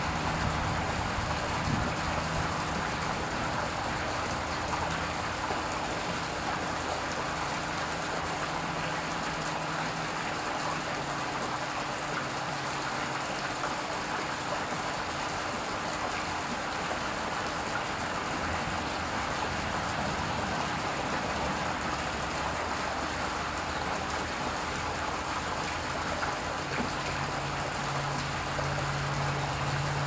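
Garden birdbath fountain running, its water splashing and trickling steadily into the basin. A low hum rises near the end.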